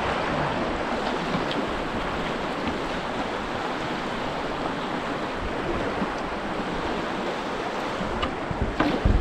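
River water rushing steadily through a shallow rapid and standing wave, with a few sharp thumps near the end.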